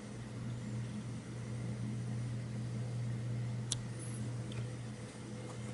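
TION Standard breather's fan running steadily with a low hum, with one sharp click a little after halfway.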